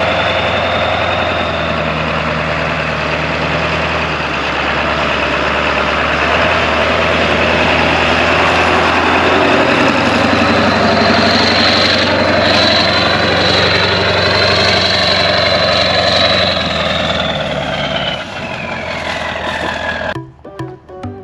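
Truck engine running close by, steady, with a high whine that comes in partway through and falls in pitch near the end. It cuts off sharply into guitar music about a second before the end.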